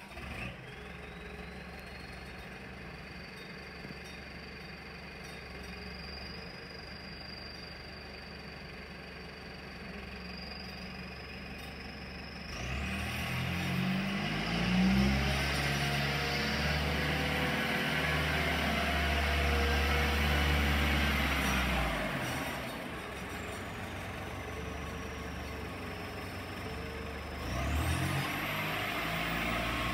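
Sandvik DT820 drilling jumbo's diesel engine running as the rig drives, revving up about halfway through, holding higher for several seconds and dropping back, then rising again near the end. A high whine climbs and falls with the revs.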